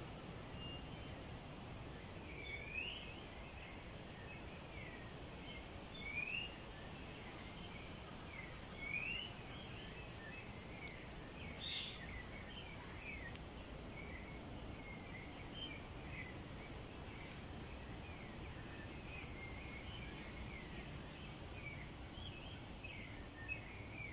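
Steady low background noise with short rising chirping calls, a few seconds apart at first and more frequent in the second half, and a single sharp click near the middle.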